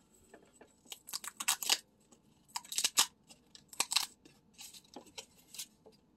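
Perforated cardboard tabs of a pull-tab lottery ticket being ripped open by hand: three main bursts of quick tearing about a second apart, then a few lighter rips.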